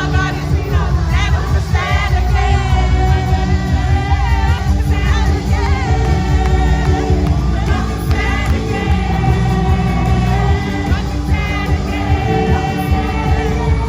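Praise-and-worship music with singing over a heavy bass line, loud and continuous.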